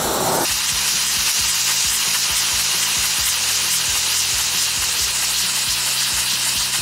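Gas welding torch flame hissing steadily as it is swept over a soot-coated aluminum panel, heating it to burn off the soot and anneal the metal.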